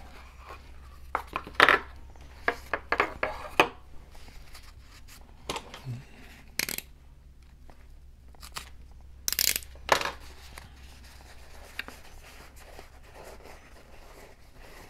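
A taped package being opened by hand: tape on a plastic tube torn off, then a paper-towel wrapping slit with a craft knife and peeled apart, heard as scattered clicks and short tearing and rustling sounds.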